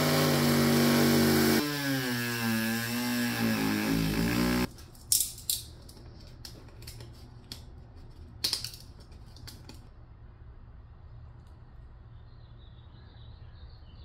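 Dremel rotary tool running at high speed, then its pitch wavering up and down as it is worked into the plastic bumper cover to cut the hitch opening; it stops about five seconds in. A few sharp clicks and scrapes of handling follow.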